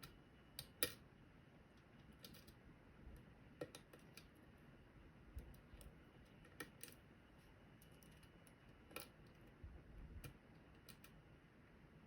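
Faint, irregular small metallic clicks and ticks of a lock pick working the pins of a Medeco Original lock cylinder under tension, as the pins are lifted and turned to set their rotations; the loudest click comes about a second in.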